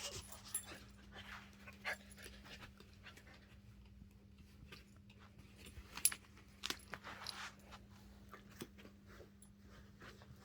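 Dog panting softly, with scattered faint clicks and scuffles and one sharper click about six seconds in, over a faint steady hum.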